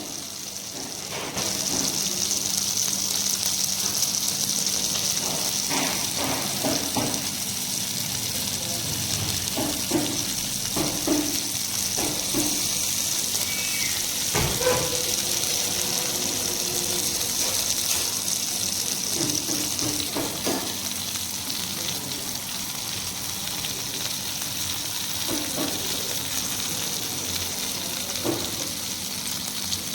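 Red snapper frying on a tawa in hot oil, sizzling steadily, the sizzle rising about a second in. Occasional short knocks and scrapes of a utensil over a faint low hum.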